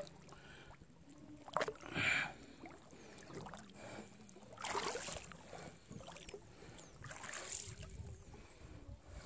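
Paddling strokes splashing and sloshing in river water, a few strokes about two to three seconds apart.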